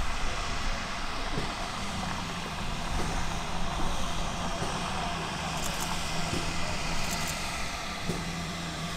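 Steam tank locomotive running slowly into the platform: a steady running noise with a low steady hum and a few faint clicks.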